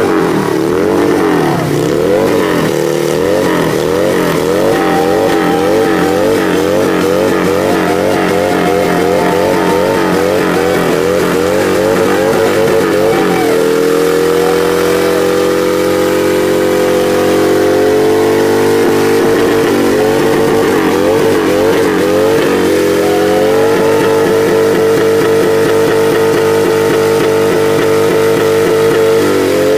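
Harley-Davidson V-twin engine held at high revs through a burnout. For about the first dozen seconds the revs rise and fall quickly, about twice a second. They then hold steadier, swing again briefly a little past the middle, and are held steady near the end.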